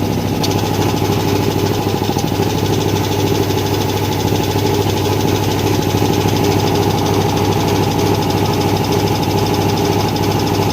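Renegade piston air compressor running at full pressure, its motor humming steadily and its pump pulsing fast and evenly.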